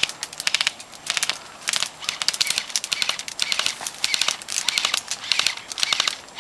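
Bursts of rapid sharp clicks, several short strings a second apart: airsoft guns firing.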